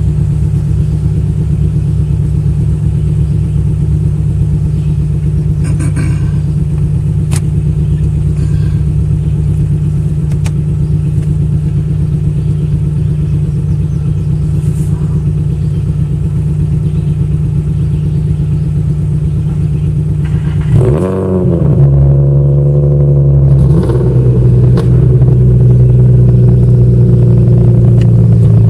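Infiniti V6 engine idling steadily, heard from inside the car. About 21 seconds in it is revved, its pitch wavering briefly, and it then runs louder at a steady note.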